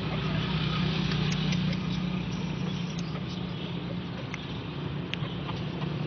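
Steady low hum of an idling engine, with four light sharp clicks spread through it.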